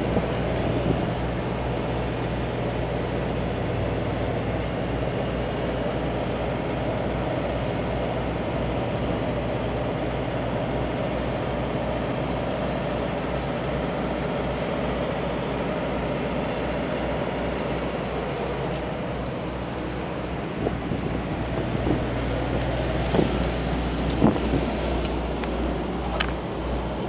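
A steady low engine drone at idle, with a few knocks and bumps near the end.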